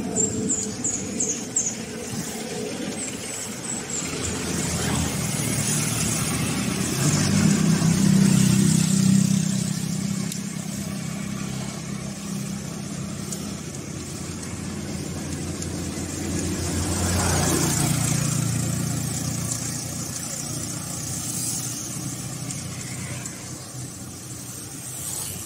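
Road traffic passing a moving bicycle: motor-vehicle engine hum swells and fades twice, about a third of the way in and again about two-thirds in, over steady wind and road noise.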